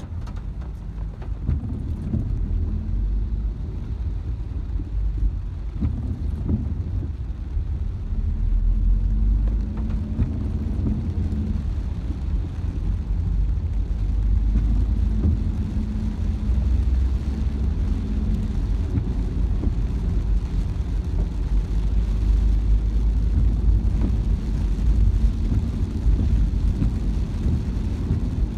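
Steady low rumble of a car driving on a wet road, engine and tyre noise heard from inside the cabin.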